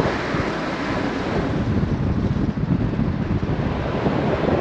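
Wind buffeting a camera microphone held out of a moving car's window: a steady, loud rushing noise with a low rumble.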